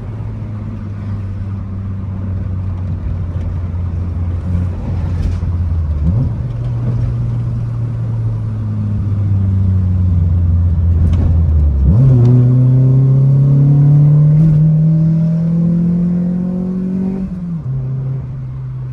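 Mitsubishi 4G93 MIVEC four-cylinder engine running while the car is driven. The revs hold fairly steady, step up sharply about six and twelve seconds in, climb slowly, then fall back near the end.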